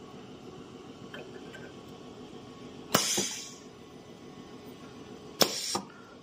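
Semi-automatic soldering machine working: two sharp metallic clacks about two and a half seconds apart, each followed by a brief hiss, over a low steady hum.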